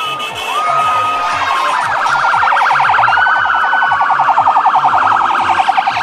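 Electronic vehicle siren: a held tone that breaks into a very fast warble about two seconds in. A low thudding beat repeats about twice a second underneath.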